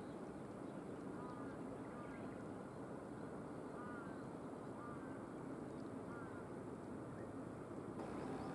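Steady low outdoor rumble with a bird calling over it in short chirpy notes, roughly one a second.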